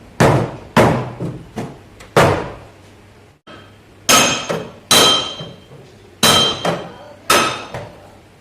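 Hammer blows on sheet-metal car body panel, typical of panel beating out a dent in a door. About five strikes come in the first couple of seconds, then after a short pause a second run of about seven. The later blows ring with a metallic tone.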